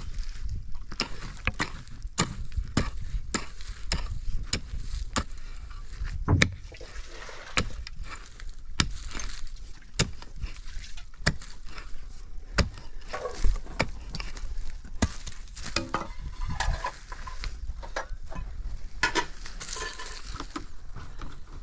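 Food preparation by hand: a kitchen utensil knocking and scraping against cookware in an irregular run of sharp clicks and knocks.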